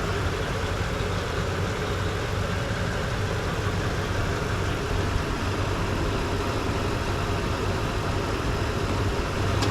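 A vehicle engine idling steadily, a low, even hum. The Tundra itself is not running, so the likely source is the vehicle jump-starting it.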